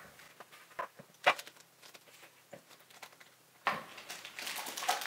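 A spatula scooping buttercream from a mixing bowl gives a few sharp taps and knocks. From about two-thirds of the way through, a plastic Ziploc freezer bag set in a glass rustles and crinkles as it is filled.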